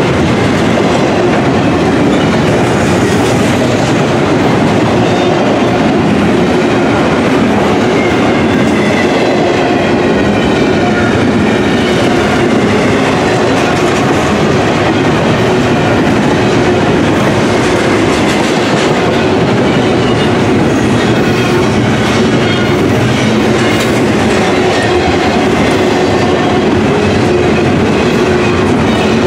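Double-stack intermodal container train's well cars rolling past at close range: steady, loud noise of steel wheels running on the rails, with no pause or change.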